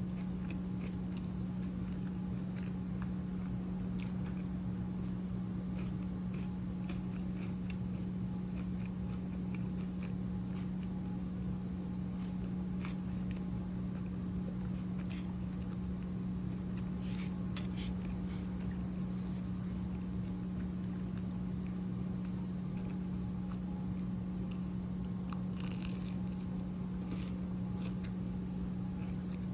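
Close-miked chewing and biting of food, with scattered small crunches and mouth clicks, over a steady low hum.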